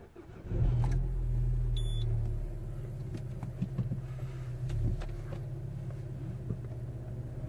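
Peugeot 308 1.6 VTi four-cylinder petrol engine starting about half a second in and idling, heard from inside the cabin. It runs louder for the first two seconds, then settles to a steady idle.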